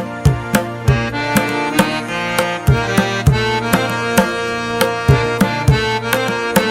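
Instrumental background music: tabla drumming in a steady rhythm over held reed-instrument chords, in the style of South Asian music.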